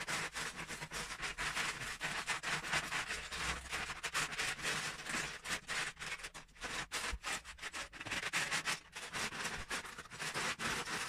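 Hands rummaging through loose Lego bricks in plastic tubs: a continuous clatter of many small plastic clicks and scrapes as the pieces are stirred and pushed aside.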